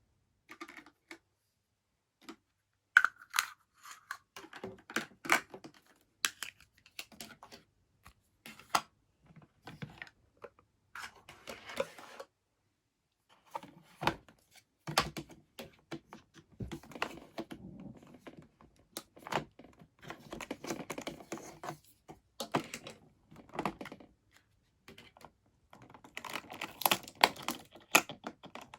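Small plastic toy kitchen pieces and their packaging being handled: irregular clicks, taps and short bursts of rustling, with the sharpest taps about three seconds in and near the end.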